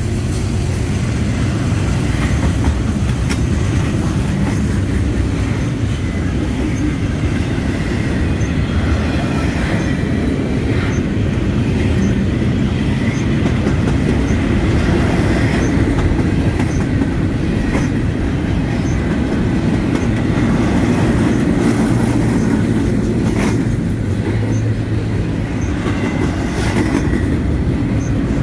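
Double-stack container train's loaded well cars rolling past close by: a steady, loud rumble of steel wheels on rail, with a few sharp clicks scattered through.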